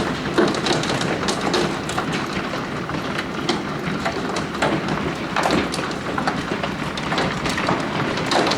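Marble-size hailstones pelting down in a dense, irregular clatter of sharp impacts over a steady rushing hiss.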